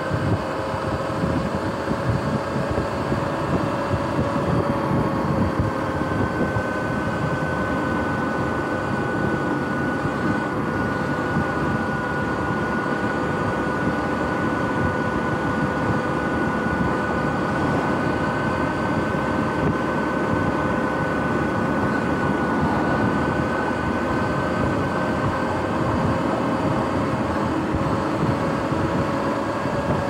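Sur-Ron X electric dirt bike cruising at a steady speed: a steady high electric drivetrain whine over wind and tyre noise.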